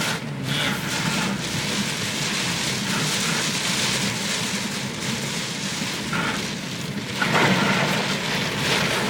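Heavy typhoon rain with rushing water, a steady hiss that grows louder about seven seconds in.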